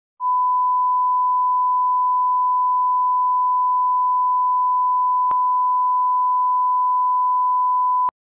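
Electronic countdown beep: one steady, pure, high tone held unbroken for about eight seconds, with a faint click about five seconds in, then cut off suddenly.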